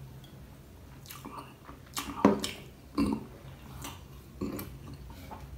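A person drinking from a glass, gulping and swallowing. Two loud throaty sounds come about two and three seconds in, the first the loudest, followed by a few softer mouth clicks.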